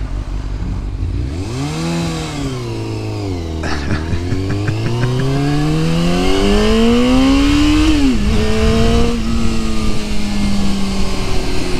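1997 Yamaha YZF600R's inline-four engine pulling away from a stop. The revs climb and fall with an upshift about four seconds in and another near eight seconds, then the engine settles into a steady cruise. Wind noise rises as the bike gathers speed.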